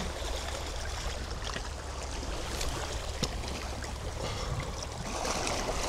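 Sea water washing and trickling among shore rocks, with a steady low rumble of light wind on the microphone. One faint tick about three seconds in.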